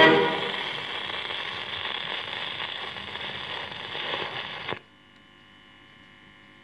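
Surface hiss and crackle of a 78 rpm shellac record playing on after the march's final note dies away. It cuts off suddenly near the end, leaving only a faint steady mains hum.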